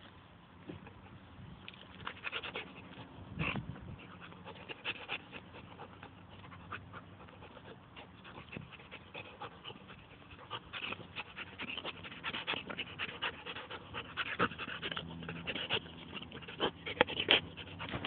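Pit bull panting in many short breaths, heavier and louder in the second half.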